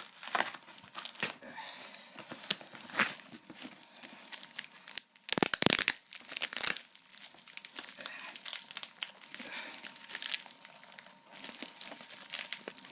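Toy packaging being crinkled and torn open by hand, in irregular rustling bursts, the loudest about five and a half seconds in.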